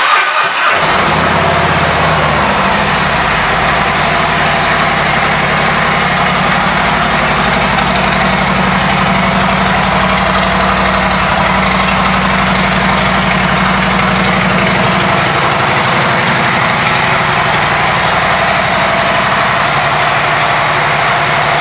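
Harley-Davidson Milwaukee-Eight 107 V-twin engine with aftermarket exhaust pipes, firing up abruptly and settling within a second or so into a steady idle.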